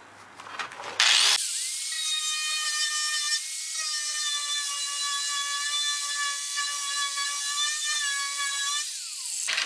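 Angle grinder with a wire wheel switched on about a second in, running with a steady high whine as it brushes the factory coating and undercoating off the Beetle's steel inner wheelhouse. Near the end it is switched off and the whine falls away.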